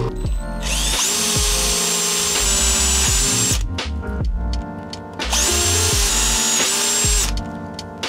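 Hand-held power drill boring into a metal sprocket and shaft, in two runs of about three seconds and two seconds. The motor whine climbs as each run starts, holds steady while cutting, and drops away when the trigger is released.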